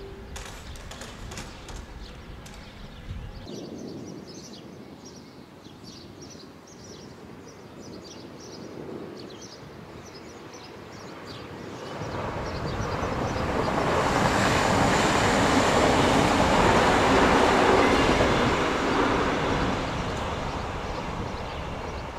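A train passing through a station: the rushing rail noise builds from about halfway in, is loudest for several seconds, then starts to fade.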